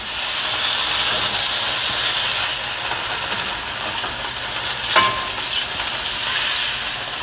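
Chicken pieces sizzling steadily as they fry in very hot oil in a frying pan, stirred with a spoon. There is a brief clink about five seconds in.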